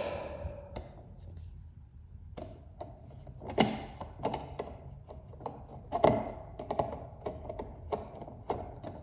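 Scattered taps, clicks and knocks of hands and tools working on an electrical wall outlet as it is fitted, with two louder thunks about three and a half and six seconds in.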